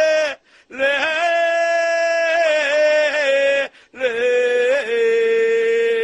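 A single voice chanting or singing long held notes in three drawn-out phrases, with short breaths between them and small bends in pitch at each change of note.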